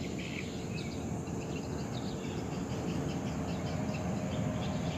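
Outdoor ambience: a steady low background rumble with faint, scattered high chirps.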